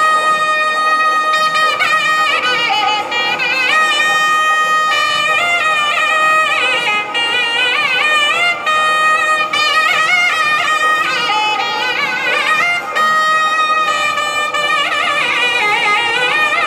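Nadaswaram, the South Indian double-reed pipe, played by a pair in unison, giving a Carnatic melody in raga Keeravani. Long held notes alternate with quick ornamented phrases that bend and slide between pitches.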